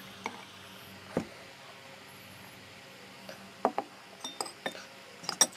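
Tableware clinking: a spoon knocking against a plate and dishes being handled, a few scattered light clinks, most of them in the second half.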